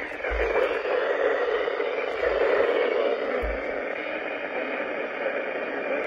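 Weather radio speaker playing the NOAA Weather Radio broadcast as a steady hiss of static, the sound confined to a narrow middle band like a small speaker's.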